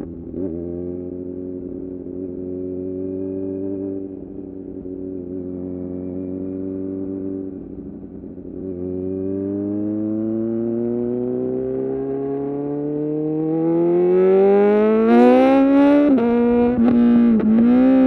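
Kawasaki Z900's inline-four engine through a full titanium SC-Project exhaust, running steadily at low speed in second gear, then accelerating hard with the pitch climbing. It gets loud near the end, with two brief sharp dips in pitch just before it peaks.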